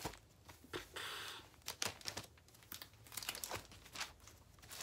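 Record sleeves rustling, crinkling and knocking as a hand rifles through a stack of records, with one longer rustle about a second in.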